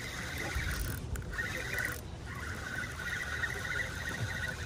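Spinning reel being cranked to bring in a hooked fish, its gears giving a fast, even whirring clatter that pauses briefly about a second in and again around two seconds in, with wind buffeting the microphone.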